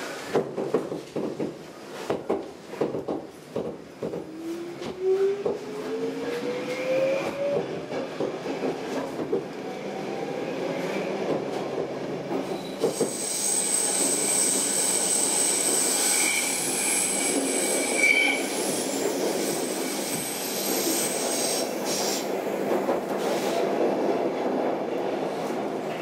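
Stockholm Metro C6 subway car pulling out and picking up speed. Knocks and clatter come first, then a whine rising in pitch as it accelerates, then steady running with a high wheel squeal from about halfway through.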